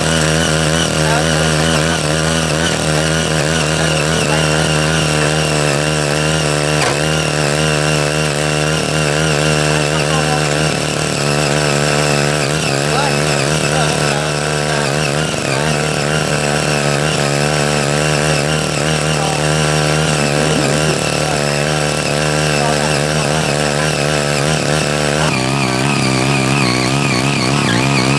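Small 5 HP engine of a CY80 mini rotary tiller running steadily under load while its rotary blades work the soil, the note wavering slightly as the load changes. The engine note shifts a few seconds before the end.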